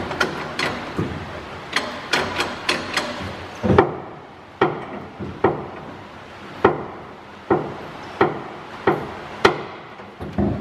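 Clutch pedal and linkage of an old truck knocking as the pedal is pressed and released over and over, with a quick run of clicks in the first few seconds, then about one knock a second. The clutch has just been adjusted and now works much softer.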